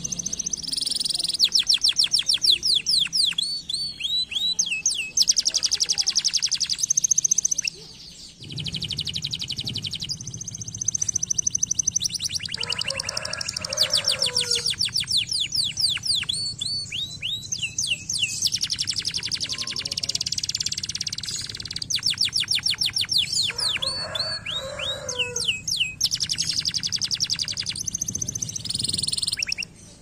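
Domestic canary singing a long song of fast trills, rapid runs of repeated notes and held high whistles, with a brief pause about eight seconds in.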